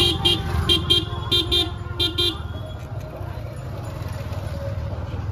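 A motorcycle horn beeps four times in quick double toots (beep-beep) over the first two and a half seconds, above a steady low rumble of engines.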